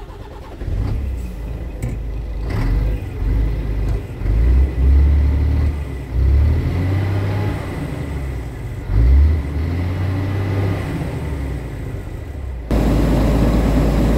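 Scania R truck's diesel engine heard from inside the cab, revved up from idle several times in short surges. Near the end the sound cuts abruptly to a steady, louder noise.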